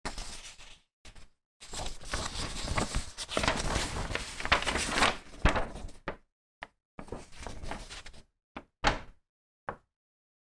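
Paper instruction sheet being unfolded and handled, rustling and crinkling in stretches, with a few short crisp sounds of the paper near the end.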